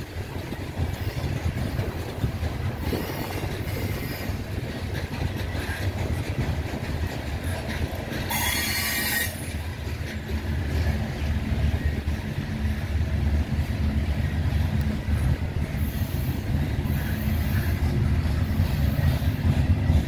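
Loaded coal hopper cars of a freight train rolling past with a steady heavy rumble and wheel clatter, growing louder in the second half. Wheels squeal briefly a few times, the loudest squeal about eight seconds in, lasting about a second.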